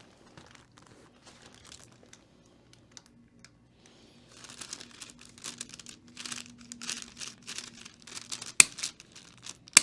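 Crinkling rustle of the treatment table's paper cover as the patient's head is shifted, then two sharp clicks of a handheld chiropractic adjusting instrument, a little over a second apart near the end.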